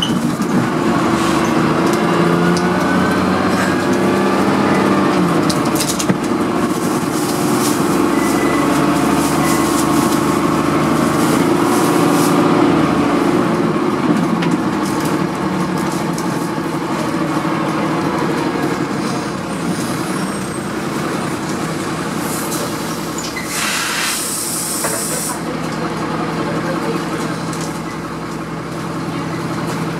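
Dennis Dart single-deck bus engine heard from inside the saloon, pulling the bus along with the revs climbing and dropping back through gear changes. A short hiss of compressed air comes about three-quarters of the way through.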